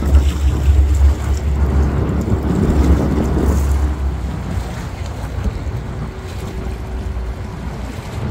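Wind buffeting the microphone with a low rumble, heaviest for the first few seconds and then easing, over a steady wash of harbour water.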